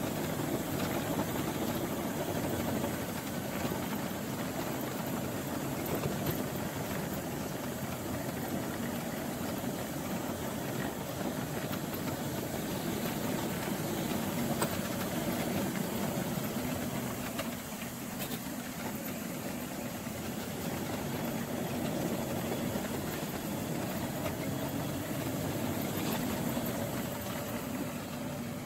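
Powered wheelchair's electric drive motors and reduction gearboxes running steadily as it rolls over paving stones, a continuous drone with tyre noise. There is no grinding from the gearbox, the sign that its grinding fault is not present.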